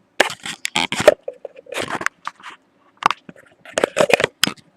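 Loud, irregular crackling and sharp clicks coming in clusters, like something being crushed or crumpled.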